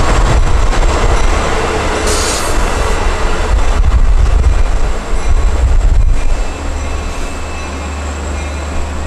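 Long Island Rail Road C3 bi-level coaches rolling past close by as the train comes into the station: a heavy, steady rumble of wheels on rail, with a brief high hiss about two seconds in.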